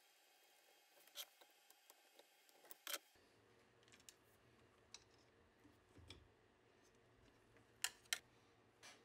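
Mostly near silence with a few scattered small clicks of a plastic Bowden tube clamp clip being handled, pulled off the old tube and fitted to the new one. The sharpest clicks come as a pair near the end.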